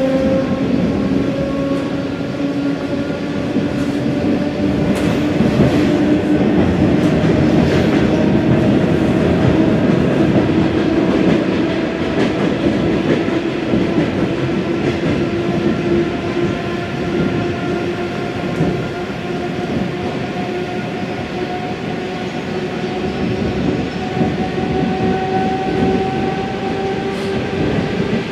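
ED4M electric multiple unit running on the rails, its traction-motor whine rising slowly in pitch as the train gathers speed. Occasional clicks of the wheels over rail joints sound over the rumble.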